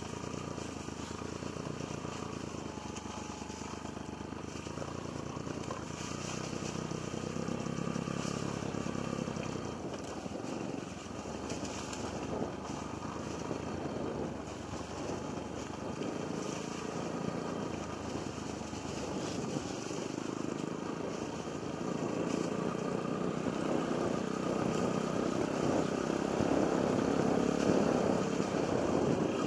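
Yamaha XTZ125's single-cylinder four-stroke engine running as the motorcycle is ridden over rough trail, with scattered knocks and rattles; the engine gets louder over the last several seconds.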